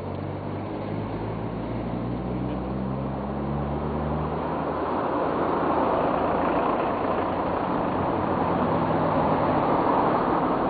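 A low engine hum under a steady rushing noise; the hum fades after about five seconds while the rushing grows louder.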